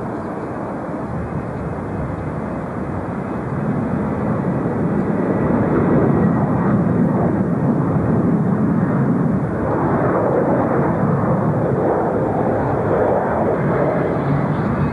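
Jet engine noise from airliners, a steady rush that grows louder about four seconds in as a twin-engine jet climbs out after takeoff.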